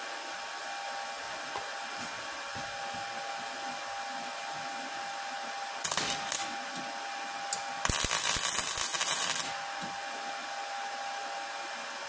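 Flux-core wire welder striking tack welds on steel angle iron and rebar: a short sputtering crackle about six seconds in, then a longer crackling burst of about a second and a half near eight seconds. A steady machine hum runs underneath.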